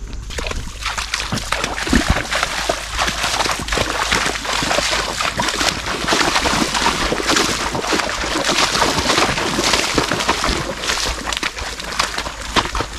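Horses' hooves splashing through shallow, muddy floodwater: a continuous, irregular sloshing of many quick strides.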